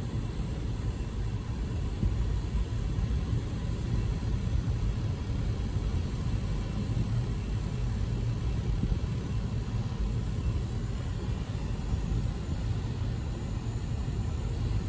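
Union Pacific freight train of autorack cars rolling past a grade crossing, a steady low rumble heard from inside a stopped car's cabin.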